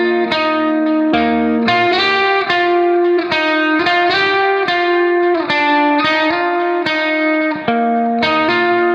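Background instrumental music: a melody of notes that each start sharply and ring on.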